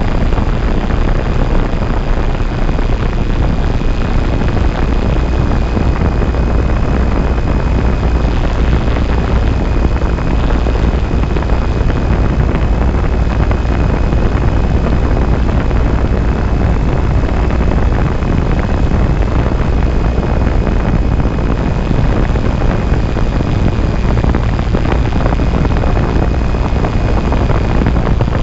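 Wind buffeting the onboard camera's microphone on a DIY 350-size quadcopter in flight, over the steady high whine of its electric motors and propellers.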